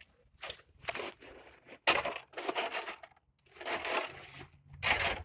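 Irregular crunching of packed snow and ice, about five separate crunches with short pauses between.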